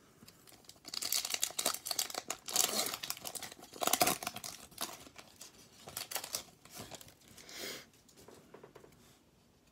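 Foil trading-card pack crinkling and tearing open by hand as the cards are pulled out. A run of crackles starts about a second in, is loudest around four seconds in, and fades near the end.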